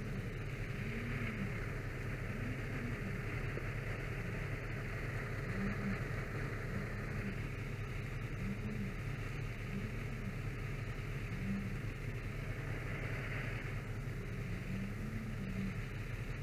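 Fire apparatus engine running steadily with a low drone, with a short low tone rising and falling every second or two over it.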